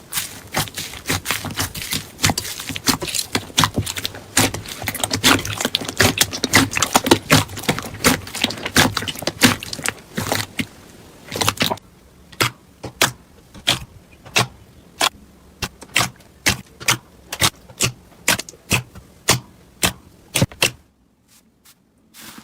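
Slime being worked by hand, giving dense crackling and clicking for about twelve seconds, then single sharp clicks or pops about two a second, which stop shortly before the end.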